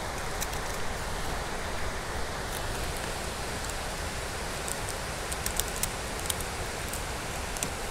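Steady outdoor hiss with a few faint small ticks scattered through it.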